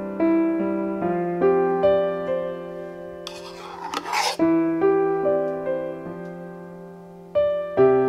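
Background solo piano music, gentle and slow. About three seconds in, a short rasping hiss lasting about a second cuts across it.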